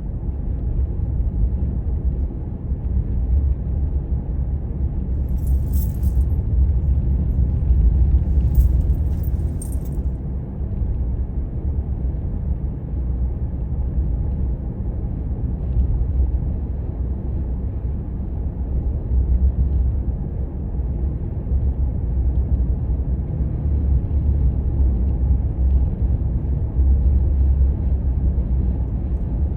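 Steady low rumble of a car being driven along a road. Two short high jingling rattles come about six and nine seconds in.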